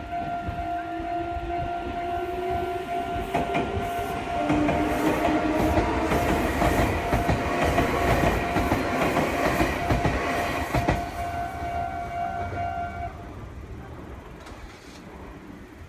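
A Meitetsu electric train passing over a level crossing: wheels rumbling and clacking on the rails, and the motor whine rising in pitch over the first few seconds as it accelerates. A steady ringing tone, the crossing alarm, sounds over it and stops about 13 seconds in, after which the passing noise fades.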